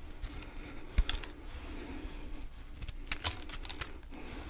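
A large ball of fresh powdery frost ice crackling and crunching under the fingers as it is gripped. It gives a handful of sharp, crisp clicks, the loudest about a second in, with several more between about three and four seconds.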